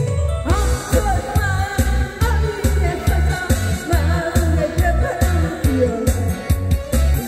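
A woman singing a Korean trot song into a microphone over amplified accompaniment with a steady beat of about two pulses a second; her voice comes in about half a second in.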